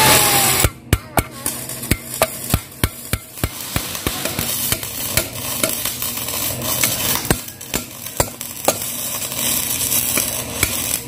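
Hammer striking steel parts of an excavator under repair: a long run of sharp, irregular metal blows, about three a second.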